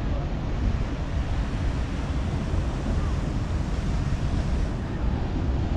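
Wind buffeting the microphone: a steady, low rumbling hiss with no breaks.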